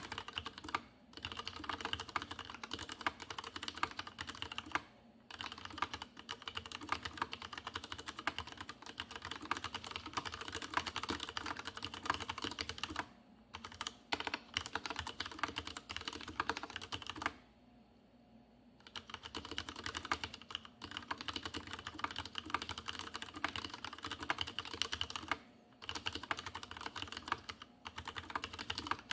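Fast, continuous typing on a Leopold FC750R tenkeyless mechanical keyboard with unlubricated Cherry MX Red linear switches: dense key clacking, broken by several short pauses, the longest about a second and a half just past the middle. The case gives a strong hollow resonance, which the owner notes as large.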